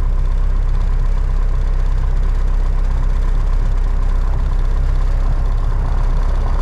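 Piper Cherokee PA-28-140's four-cylinder Lycoming engine and propeller running steadily at low power, heard from inside the cockpit during the landing roll-out.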